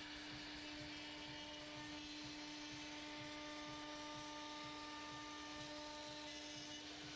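A faint, steady hum with one clear low tone and fainter higher tones above it, unchanging throughout.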